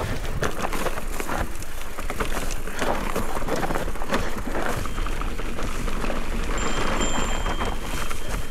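Specialized Turbo Levo electric mountain bike rolling down loose, overgrown singletrack: tyres crunching over dry dirt and stones, the bike clattering with many sharp knocks, and brush scraping past.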